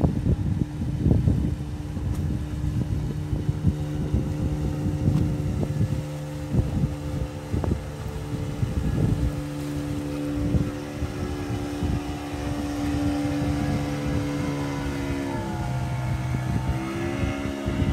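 Outboard motor of a small open fishing boat running steadily as it passes, its engine note dipping in pitch and rising again near the end. Wind buffets the microphone throughout.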